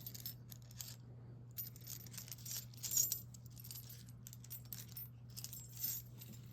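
Keys jingling and clinking in short bursts as a handcuff key is fetched out, louder about three seconds in and again near the end, over a steady low hum.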